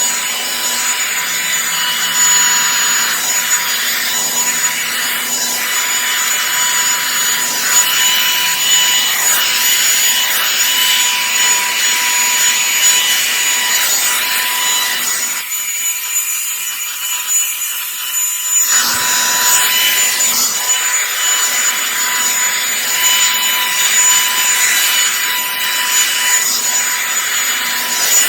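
Revlon One-Step hot-air brush dryer running: a steady rush of air with a high motor whine, and the round brush rubbing through hair. For about three seconds past the middle the fuller part of the sound drops away, leaving a thinner hiss, then comes back.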